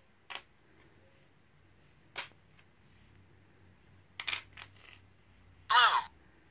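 A few light clicks, then near the end a LEGO Mindstorms EV3 brick's speaker plays its recorded voice saying "blue" once, a short, loud word: the colour sensor has detected a blue piece.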